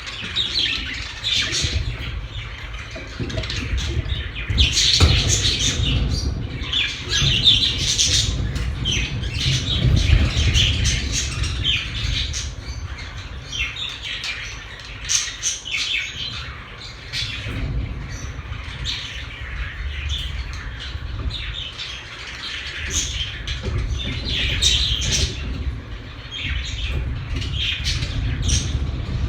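Several pet budgerigars chattering and chirping in a continual stream of short calls, over a low steady rumble.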